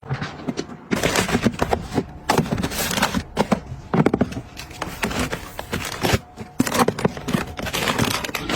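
Busy handling sounds of fridge restocking: a dense run of clicks, knocks and rustling as containers and food packaging are picked up and set down.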